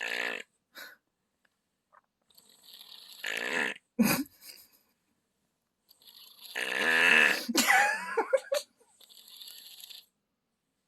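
A sick child snoring: a run of uneven snoring breaths with short gaps between them. The longest and loudest comes about six to eight seconds in and ends in short wavering squeaks.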